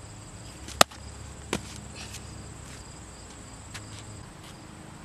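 A baseball smacks into a leather glove with one sharp, loud pop about a second in, followed by a fainter knock, over a steady high chirring of insects.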